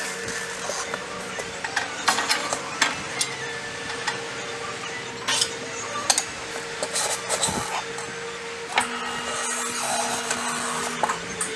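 Hand-tool work on a scooter: scattered sharp clicks and knocks with rubbing and scraping, over a steady background hum.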